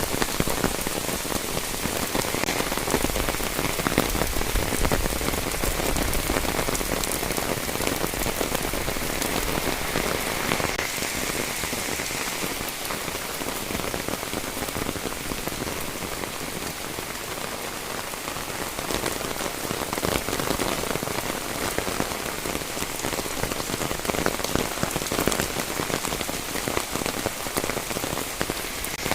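Heavy rain falling steadily, a dense hiss of many drops striking close by.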